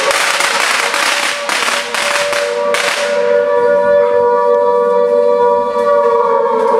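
Air-raid siren sounding a drill alarm. The first three seconds are a loud noisy din with bangs; then the siren wails as a steady chord of two close notes that begins to sink in pitch near the end.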